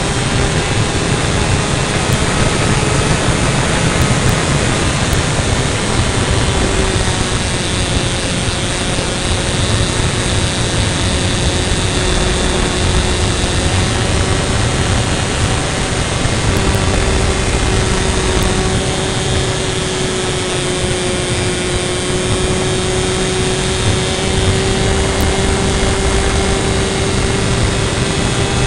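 A radio-controlled model airplane's engine and propeller droning steadily in flight, heard from a camera mounted on the plane. The pitch wavers a little, and there is heavy wind rush on the microphone.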